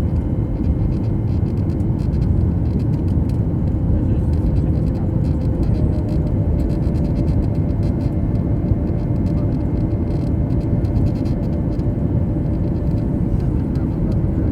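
Steady, loud low rumble of a Boeing 737 MAX's CFM LEAP-1B jet engines, with a faint steady hum that shifts slightly higher in pitch about six seconds in.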